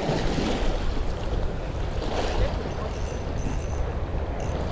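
Wind buffeting the microphone over waves washing against the breakwater, a steady rushing noise with a low rumble.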